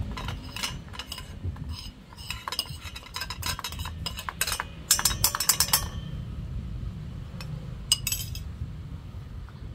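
Metal spoon clinking and scraping against a stainless steel dog bowl as food is pushed into it, a quick string of sharp clinks, loudest in a rapid run about five seconds in, with a brief cluster again near the end.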